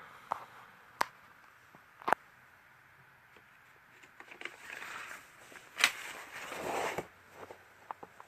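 Handling of a plastic tool case and its tools: three sharp clicks, about a second apart early on and again near six seconds, with a stretch of scraping and rustling between about four and seven seconds.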